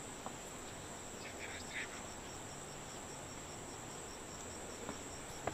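Insects trilling in tropical woodland: a steady, high-pitched chorus with a faint regular pulsing beneath it.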